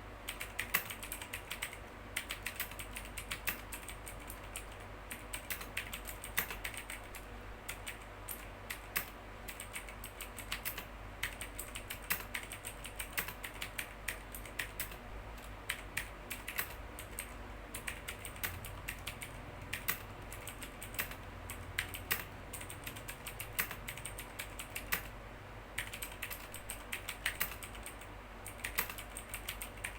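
Typing on a Meca Warrior X RGB V2 mechanical keyboard with Outemu Blue clicky tactile switches: a fast, irregular stream of sharp clicks, with a couple of short pauses.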